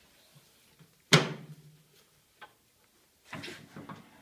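A single sharp, loud knock from the IDEAL 4810-95 paper guillotine as it is handled, with a short low ring after it, then a cluster of smaller knocks and rattles near the end.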